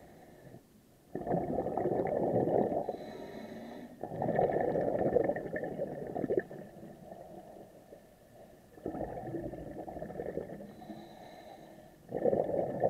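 Scuba diver breathing through a regulator underwater: four bursts of exhaled bubbles rumbling and gurgling, each lasting a couple of seconds, with quieter gaps between them where the diver inhales.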